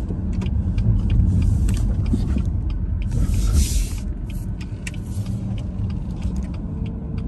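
Car driving slowly, heard from inside the cabin: a steady low rumble of engine and tyres, with a brief hissing swell about three seconds in.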